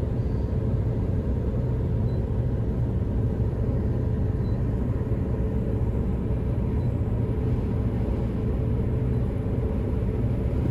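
Combine harvester running steadily at work, a constant low rumble with a faint steady hum above it.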